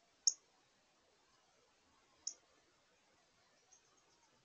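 Two sharp, high chip notes about two seconds apart, typical of a northern cardinal's chip call, with a few faint high notes near the end.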